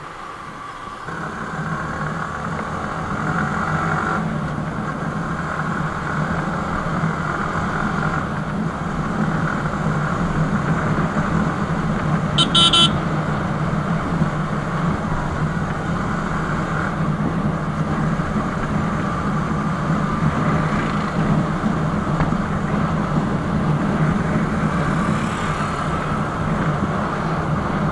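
Motorcycle riding at road speed: steady engine and road noise that grows louder over the first few seconds, with a short horn beep about twelve seconds in.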